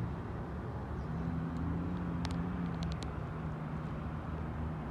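Street traffic at an intersection: a steady low rumble of vehicle engines running, with a few light clicks a little over two seconds in.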